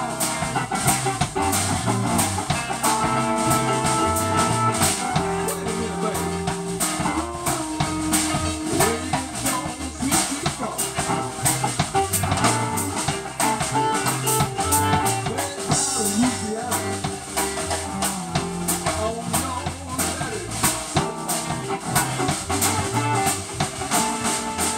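Live blues band playing an instrumental passage with no vocals: electric guitars and keyboard over a steady drum-kit beat, with a guitar note bent upward about eight seconds in.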